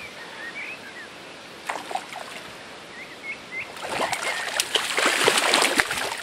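A hooked brown trout of about two pounds thrashing and splashing at the surface of a shallow stream beside the landing net. The splashing starts a little under four seconds in and is the loudest sound.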